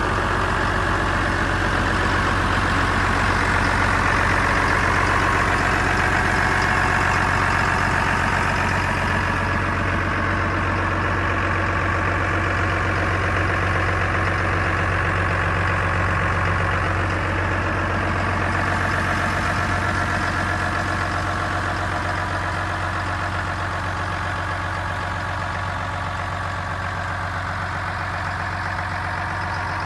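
John Deere 6506's 6.8-litre six-cylinder diesel engine idling steadily.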